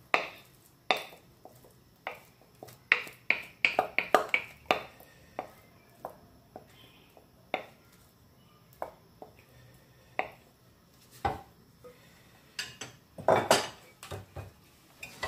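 A utensil clinking and scraping against a glass mixing bowl as sauce is scraped out of it into a pan: a quick run of sharp taps in the first few seconds, then scattered clicks, and a short burst of clatter near the end.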